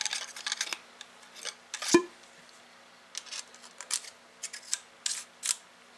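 Wooden ramrod being pushed into the ramrod pipe under a muzzleloading pistol's barrel, scraping and rubbing in short strokes where it fits tight, with one sharper knock about two seconds in.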